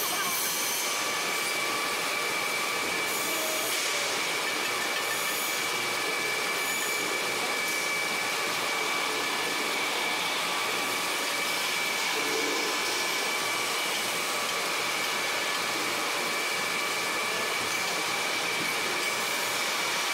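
Steady machinery noise: an even hiss with a steady high whine running through it.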